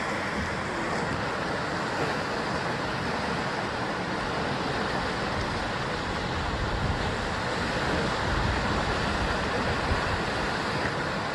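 Sea surf washing against a basalt rock coast: a steady wash of waves, with the low rumble swelling a little after the middle.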